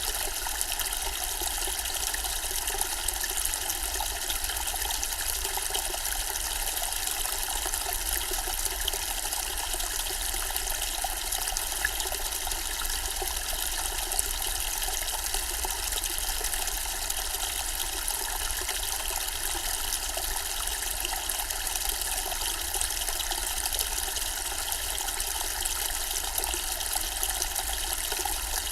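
Zen-style water fountain running, its water falling steadily and evenly.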